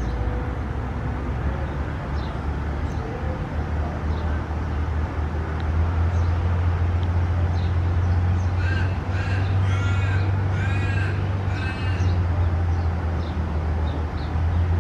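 A steady low rumble throughout, with a bird giving a quick run of about six short calls about nine to twelve seconds in.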